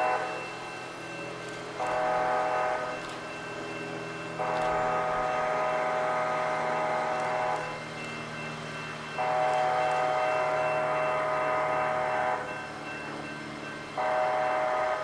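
Amtrak Cascades passenger train's multi-tone horn sounding a series of blasts as the train arrives: a short one about two seconds in, two long ones of about three seconds each, and another starting near the end, over the steady low rumble of the train.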